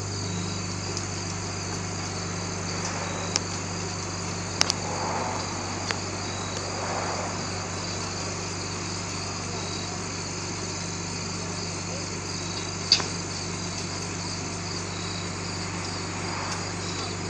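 Crickets chirring steadily over the low, steady hum of an engine running, likely the wrecker pulling the truck up the slope. A few sharp clicks break through, the loudest about thirteen seconds in.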